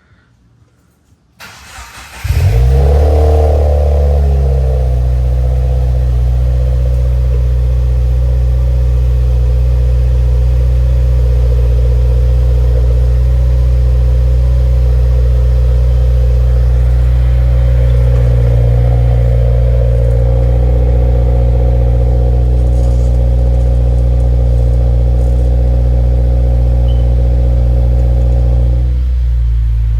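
The 2017 Subaru WRX's turbocharged flat-four, breathing through a freshly fitted Invidia R400 exhaust, cranks and starts about two seconds in. It flares briefly, then settles into a steady idle, which steps down slightly near the end.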